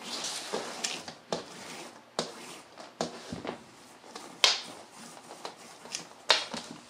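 Paracord being pulled through a weave knot and dragged across a wooden tabletop: irregular rustling swishes and small clicks, with a couple of louder swishes in the second half.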